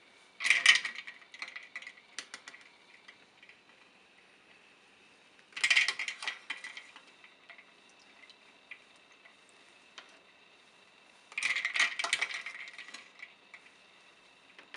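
Ice cubes clinking and rattling against a stainless mesh strainer and a plastic bowl of ice water as the strainer is stirred through it to chill blanched clam. The clinking comes in three bursts of about a second each, roughly five seconds apart.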